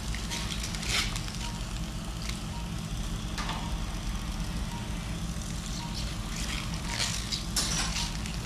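Operating-room equipment during arthroscopic surgery: a steady low machine hum with faint short beeps about once a second and a few brief bursts of hiss.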